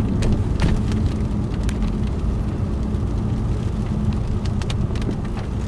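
Car running at low speed, a steady low rumble heard from inside the cabin, with scattered sharp taps of water drops hitting the car.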